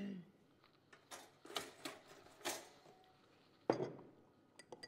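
Kitchen things being handled at a counter: a scattering of short knocks and clicks. The loudest is a knock about three-quarters of the way through, and a quick run of small clicks comes near the end.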